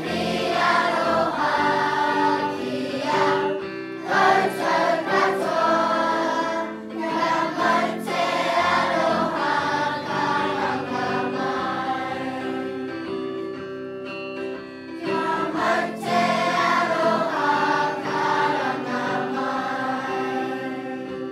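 A large group of children and adults singing together in unison to acoustic guitar: a waiata sung in support of the welcome speech.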